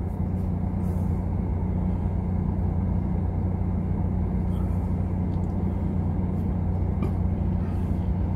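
Steady low hum of a parked car's engine idling, heard from inside the cabin.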